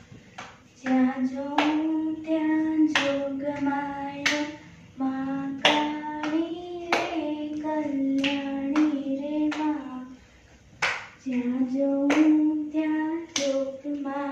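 A young girl singing a garba in long held notes, phrase by phrase with short pauses between lines, while clapping her hands in time about once a second.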